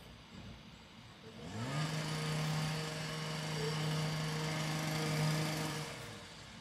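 Two-stroke chainsaw revved up from low about a second and a half in, held steady at high revs for about four seconds, then let off near the end.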